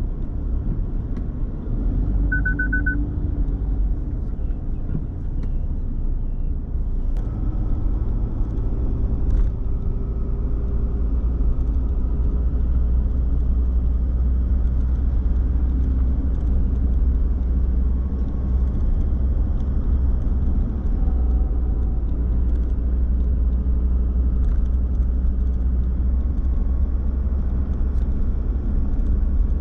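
Car driving through city streets, a steady low rumble of engine and road noise. A quick run of short high-pitched beeps sounds about two seconds in.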